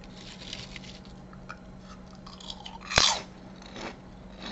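A person biting into and chewing crunchy small square potato chips, with one loud bite about three seconds in and softer crunches around it.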